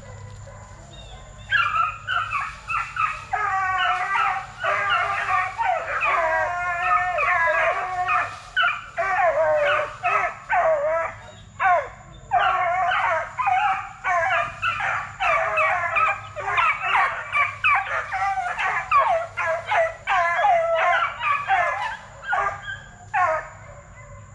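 Several young Plott–black-and-tan coonhound crosses baying, their short repeated hound calls overlapping continuously, starting about a second and a half in.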